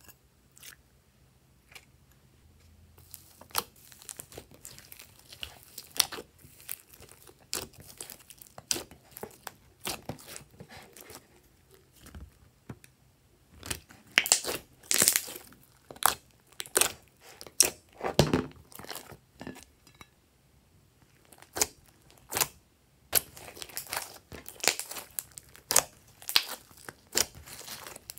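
Glossy slime being kneaded, squeezed and folded by hand, giving irregular sticky pops and crackles. There is a short lull about twenty seconds in.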